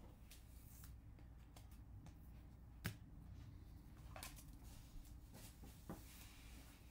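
Faint handling of trading cards and clear plastic card holders: scattered light clicks and rustles over a low hum, with one sharper click about three seconds in.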